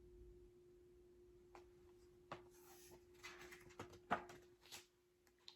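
Quiet page turning of a picture book: faint paper rustling and a few light taps, the sharpest just after four seconds in, over a faint steady hum.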